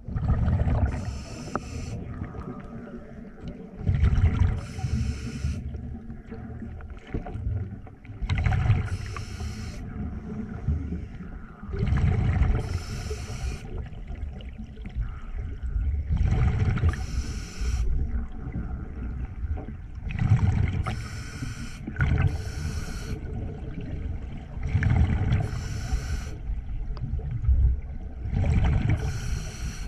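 Scuba regulator breathing underwater: a hissing inhale and a bubbling exhale, repeating about every four seconds.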